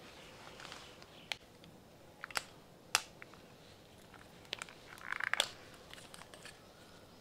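Scissors snipping hair: a handful of faint, sharp snips at irregular intervals, with a brief rustle of hair and handling about five seconds in.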